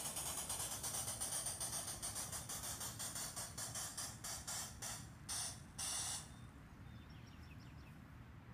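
Simulated steam-locomotive chuffs from a small electronic sound board played through a 1-inch speaker, triggered by contacts on a gondola axle of a garden-scale train: a fast run of hissy chuffs that slows to a few spaced puffs and stops about six seconds in, as the train slows to a halt.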